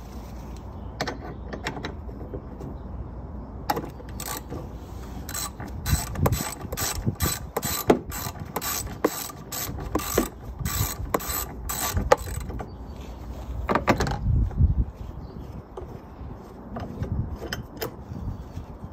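Ratchet wrench clicking as a bolt on the air filter box is loosened, the clicks coming in a dense run through the middle and a few more near the end.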